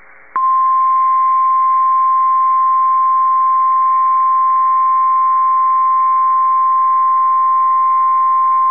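NOAA Weather Radio warning alarm tone: a single loud, steady pure tone of about 1050 Hz that starts a moment in and holds unbroken. It is the alert signal that comes before a new warning is read.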